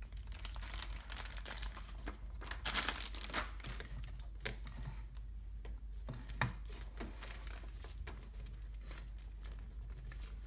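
Irregular rustling and crinkling of parts being handled by hand, with a few light clicks, over a steady low hum.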